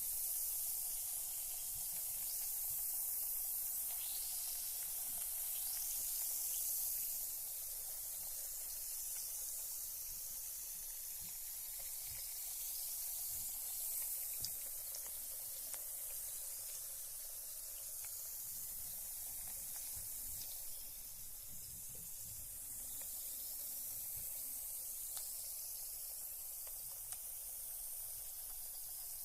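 A carbonated bath bomb fizzing as it dissolves in bath water: a steady high hiss of small bursting bubbles with faint crackles and a few tiny ticks.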